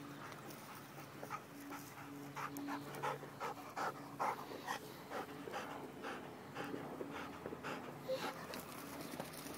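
A young black Labrador retriever panting close by, quick rhythmic breaths at about three a second.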